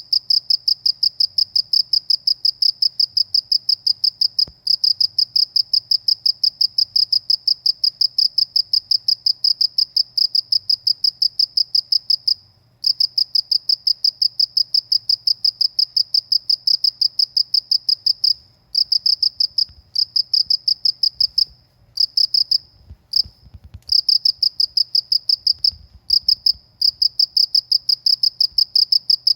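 Cricket chirping close and loud: a rapid, even train of high-pitched pulses that breaks off for brief pauses about halfway through and several times near the end.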